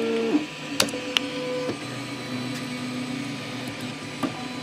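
Printrbot Simple Metal 3D printer's stepper motors whining as it runs a homing command, the steady tone changing pitch several times as one move gives way to the next, with a couple of sharp clicks about a second in. The homing fails because the inductive bed-leveling sensor gives a false trigger; the owner suspects it is leaking voltage into the Z stop.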